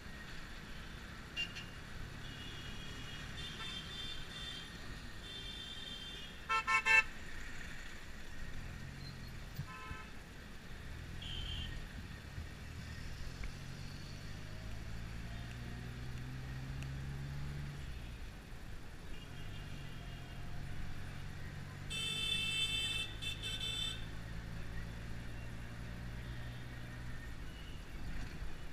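Taxi engine running in traffic, heard from inside the cabin, its low note rising and falling as the car speeds up and slows down. Vehicle horns toot over it: a few short, loud toots about seven seconds in, a longer horn blast past the twenty-second mark, and fainter horns now and then.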